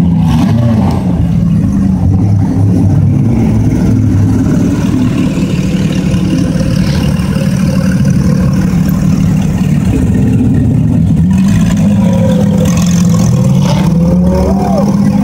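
Porsche 911 GT3's naturally aspirated flat-six running loud at low revs, its pitch rising and falling slightly near the start and again near the end as the throttle is eased.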